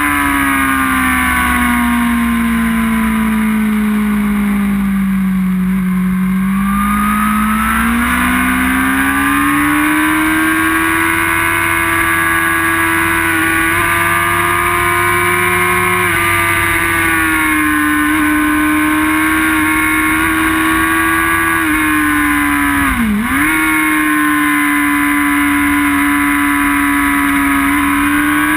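Inline-four sportbike engine running hard on track, heard onboard with wind rush. The revs fall steadily for about six seconds, climb back over the next few, and then hold high, with one quick sharp dip and recovery a little over 20 seconds in.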